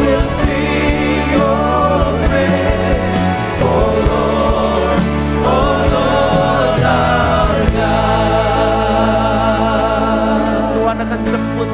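Church worship band and singers performing a Christian worship song: held, wavering vocal lines over full band accompaniment, the bass settling into a long low note about eight seconds in.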